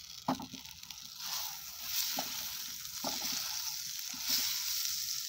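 Butter sizzling as it melts in a hot frying pan, heating for a sauce, the hiss growing stronger about a second in. A wooden spatula pushes it about, with a few light knocks against the pan.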